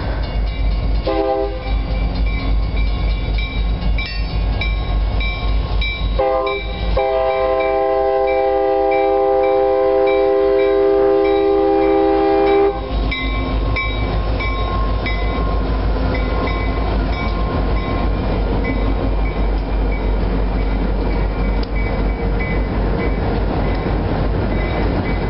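Freight train's diesel locomotive horn sounds a short blast about a second in, then another that runs into a long blast of about six seconds as the lead locomotives pass close by. After that the freight cars rumble past with steady rolling noise and repeated short high squeaks from the wheels on the rails.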